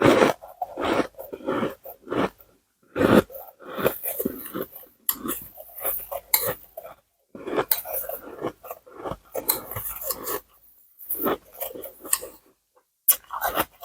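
Ice being crunched and chewed close to the microphone: irregular bursts of crisp crunching, separated by short pauses.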